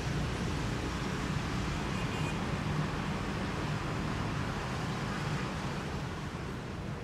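C-2 Greyhound's twin Allison T56 turboprop engines and propellers droning steadily at taxi power, with a constant low hum.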